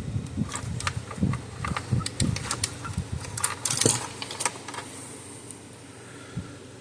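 Irregular light clicks and taps of small parts and hand tools being handled during electric fence charger repair, with a brief scraping rustle near the middle.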